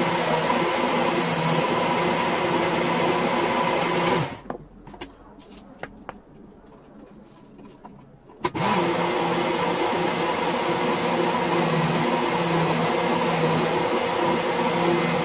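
WorkSharp Ken Onion belt sharpener with the Blade Grinder attachment running with a steady motor hum, its abrasive belt grinding a dagger's edge. The motor cuts off suddenly about four seconds in, leaving a few light clicks of handling, then starts again about four seconds later and runs on steadily.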